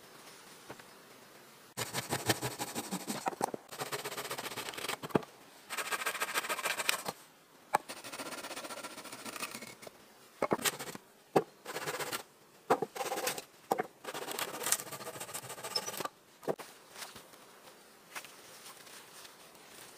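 Handling of wooden poles and branches: bursts of scraping and rustling broken by sharp wooden knocks as poles are set against a shelter frame. It starts about two seconds in and dies away near the end.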